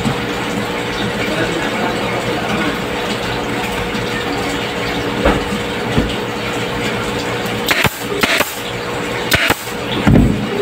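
Steady mechanical hum of a noisy workshop, with a constant droning tone. Several short sharp clicks and knocks come in the second half.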